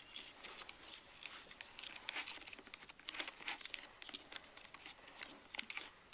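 Small spoon stirring powder into water in a plastic tray: faint, irregular scraping and clicking.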